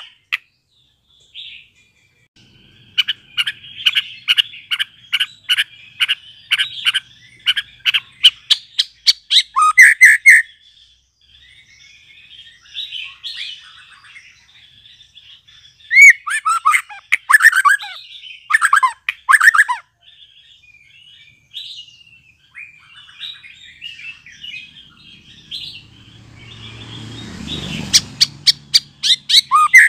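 Young white-rumped shama singing: a run of short, repeated notes that speed up, then loud sweeping phrases broken by soft twittering. A brief low rustle comes near the end.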